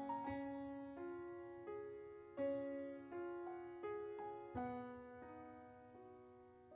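Background music: a slow piano tune, notes and chords struck about every half second and fading away.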